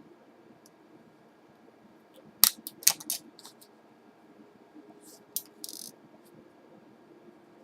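Small hard laptop parts being handled: a quick cluster of sharp clicks and clacks about two and a half seconds in, then a couple more clicks and a brief scrape around five seconds in.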